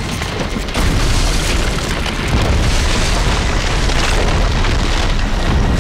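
Film sound effects of the ground bursting open and earth and rock crumbling: a dense, deep rumble with booms, stepping louder about a second in.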